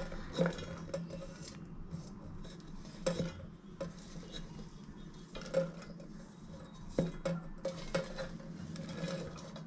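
Chopped onion pieces pushed by hand off a cutting board into a stainless-steel mixer-grinder jar: irregular light knocks and scrapes with a short metallic ring as the pieces and the board's edge hit the jar.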